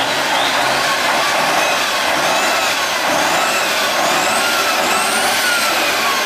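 Tatra 813 8x8 truck's diesel engine working under load over rough ground, the revs rising and falling again and again with a high whine that follows them.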